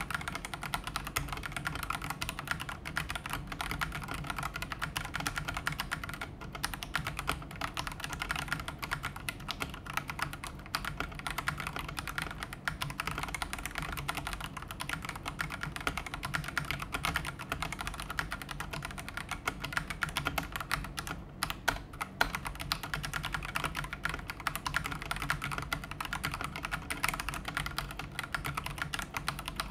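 Daxa M100 Pro mechanical keyboard with PBT keycaps being typed on quickly and continuously, a steady stream of key clicks and clacks.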